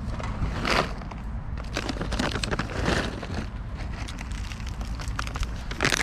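A plastic snack bag of cashews crinkling and crackling as a hand rummages in it, swelling louder a few times, over a steady low rumble.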